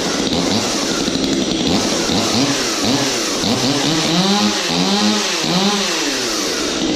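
Two-stroke chainsaw with a custom ported exhaust and intake and a custom carburetor, running loud and being revved again and again, its pitch rising and falling about twice a second in the second half.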